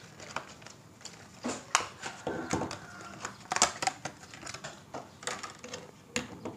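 Clear plastic blister packaging crackling and clicking as it is pulled open and handled, a string of irregular sharp clicks and crinkles.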